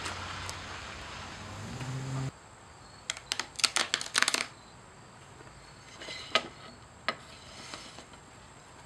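Fabric being lifted and laid down over a board, rustling and crackling in short bursts of sharp clicks. A low rumble in the first two seconds cuts off suddenly.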